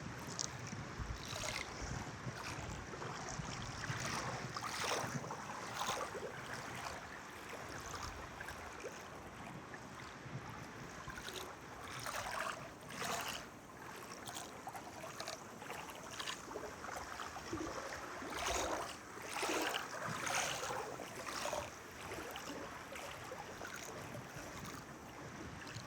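Water lapping and splashing in irregular swells, with wind noise on the microphone.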